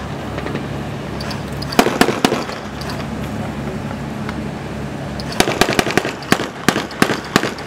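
Small-arms gunfire, sharp cracks fired irregularly: a short cluster of about four shots some two seconds in, then a longer, denser run of shots from about five and a half seconds on. Under the shots runs the steady low hum of boat engines.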